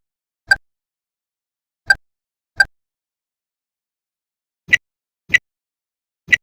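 Short, sharp clicks in pairs, the two clicks of a pair about two-thirds of a second apart, with dead silence between pairs. The clicks in the second half are slightly higher in pitch than the earlier ones.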